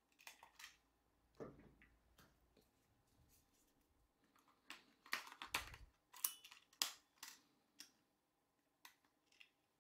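Plastic clicks and scrapes from handling a Sony RX10 III camera: its battery door is opened, the battery is pulled out and pushed back in, and the door clicks shut. The sharpest clicks come about five to seven seconds in.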